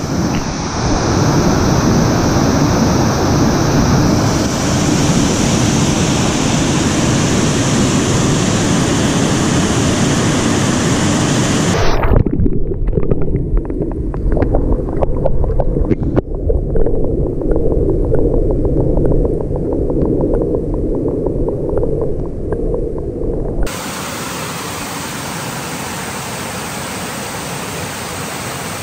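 Rushing water of a small waterfall pouring into a rocky river pool. A little past a third of the way through it turns muffled and low with faint crackling, heard from underwater. Near the end it becomes a steady, even waterfall rush.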